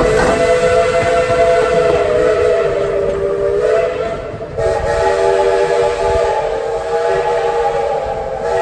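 Steam locomotive's chime whistle blowing two long blasts, several notes sounding at once, with a short break between them.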